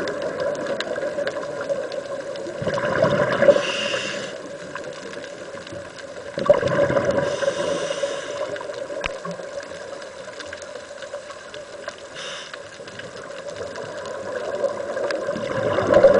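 Scuba regulator breathing heard underwater: a short hissing inhale about every four seconds, and bubbling rushes of exhaled air, over a steady hum.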